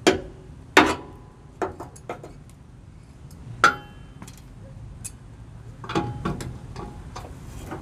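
Sharp metal clinks and knocks of a socket wrench being fitted and worked on a riding mower's blade bolt: a handful of separate clinks, the loudest about a second in and again near four seconds in.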